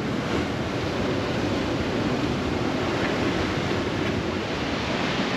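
Big sea swell: surf washing and breaking in a steady rush of noise.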